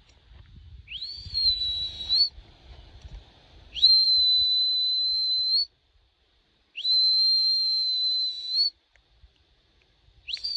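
A whistle blown in long, steady, high-pitched blasts, each rising quickly to pitch and held for about two seconds: three blasts, then a fourth starting near the end, a recall signal to dogs. Low wind or handling rumble is heard in the first few seconds.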